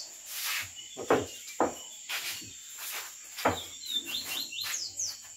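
Night insects keep up a steady high-pitched trill, with a short series of quick falling chirps about four seconds in. Several sharp knocks stand out above it, the loudest about a second in, at a second and a half, and at three and a half seconds.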